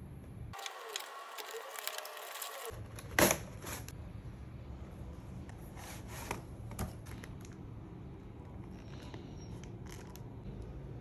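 Cardboard doll box and its inner tray being handled and slid open: scattered clicks and rustling, with one sharp knock about three seconds in, over a steady low hum.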